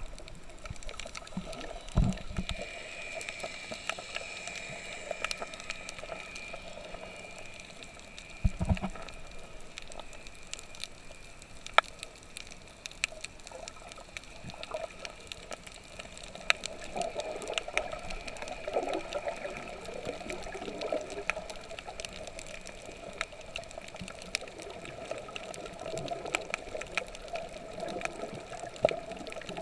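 Water sloshing and gurgling with many scattered sharp clicks over a steady faint hum, and two dull thumps, one about two seconds in and one about eight seconds in.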